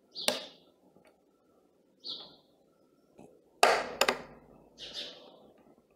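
Sharp clicks and knocks of hard plastic and metal parts from a hand mixer being handled and fitted back into its plastic housing on a wooden table. The loudest is a quick cluster of two or three knocks about three and a half to four seconds in.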